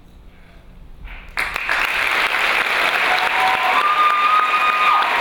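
Audience applause breaking out suddenly about a second and a half in after a quiet moment, then holding steady, with a few drawn-out cheers rising over it later.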